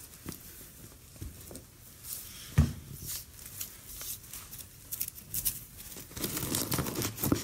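Ribbon and balloon rustling and crinkling as a ribbon is tied onto the neck of a helium balloon, growing busier near the end. One sharp knock about two and a half seconds in is the loudest sound.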